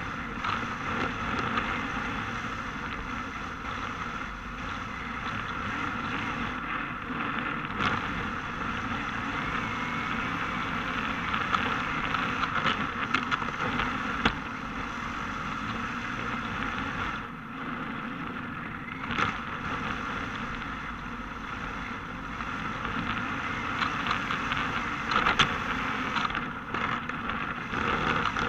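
Onboard sound of a Yokomo DRB Hyper electric 1/10 RC drift car running on asphalt: a steady rushing noise from its drivetrain and tyres, with a few sharp knocks along the way.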